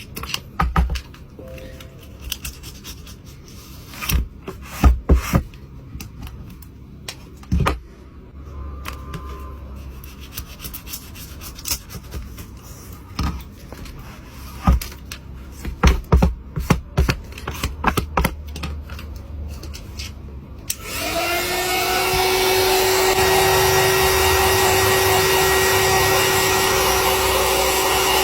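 Scattered sharp clicks and taps of small tools being handled. About 21 seconds in, a small electric hot-air blower starts up: its motor rises quickly to a steady pitch and runs on with a rushing of air.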